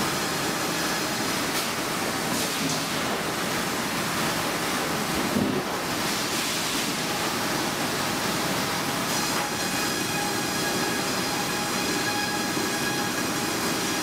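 Steady machinery noise of a saw filing room, with a brief louder knock about five seconds in and faint high steady tones joining about nine seconds in.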